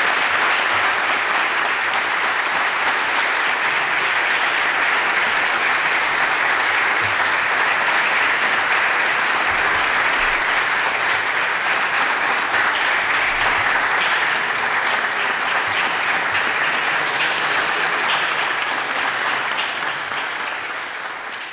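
Audience applauding steadily. Near the end the applause thins into scattered separate claps and fades.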